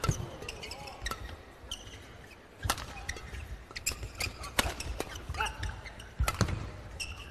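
Badminton rackets hitting the shuttlecock back and forth in a fast doubles rally: sharp cracks every second or so, the loudest one near the end, with a few short squeaks of shoes on the court between hits.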